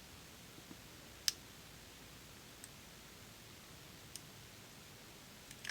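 A few faint, sharp clicks of a lock pick working the pins inside a Robur safe deposit box lock, the sharpest about a second in, as a sidebar side pin is pushed up another gate.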